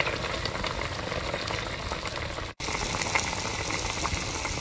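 Broth boiling in a large iron wok, a steady bubbling with fine crackles; it cuts out for an instant about two and a half seconds in.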